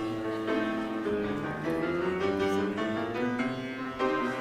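Piano playing a musical introduction: a run of separate notes.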